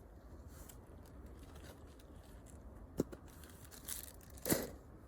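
Wood bonfire crackling, with a sharp pop about three seconds in and a louder one near the end, over a low steady rumble.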